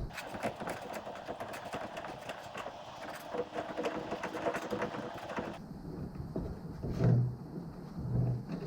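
Hand tools working on a car's pedal assembly: a dense run of small metallic clicks and scraping for about five and a half seconds, then a few separate knocks.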